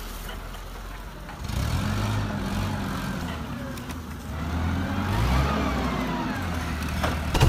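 Forklift engine sound starting about a second and a half in, running and revving up and down as the forklift drives down the loading ramps, with a sharp knock near the end.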